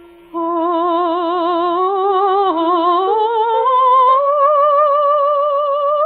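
A woman's soprano voice singing one long, slow melodic line with a wide vibrato, climbing in steps from about three seconds in. It is a melody sung back after the piano, which the voice teacher dismisses as singing like a milkmaid.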